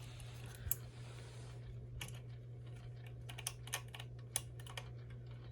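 Hugger ceiling fan running with a steady low motor hum and irregular sharp ticking clicks, several louder than the hum. The owner puts the noise down to either worn bearings or something scraping.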